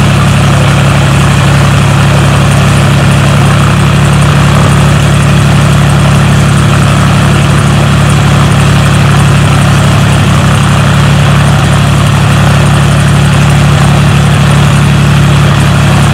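Single-engine piston propeller plane idling on the ground with its propeller turning, a loud, steady engine hum that does not change.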